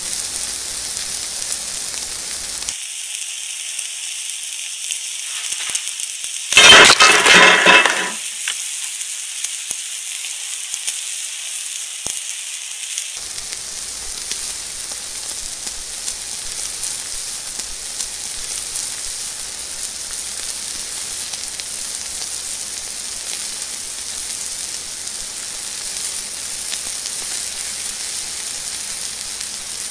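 Beef steak sizzling steadily in a cast iron pan on glowing embers, freshly laid in raw. About six and a half seconds in, a sudden loud burst of noise lasting about a second and a half rises over the sizzle.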